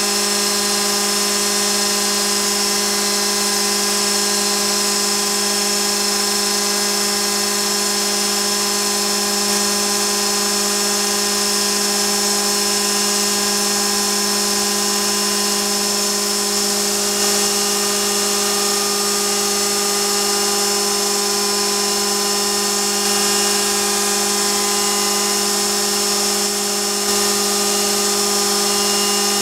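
Gorton 0-16A milling machine spindle spinning a large router bit through Claro walnut, a steady high-pitched machine whine that holds unchanged, with a shop vacuum hissing at the cutter as it pulls away the chips.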